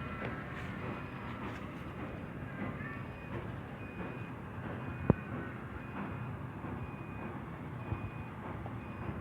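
Steady low background rumble with a faint, short high beep repeating a little over once a second, and one sharp click about five seconds in.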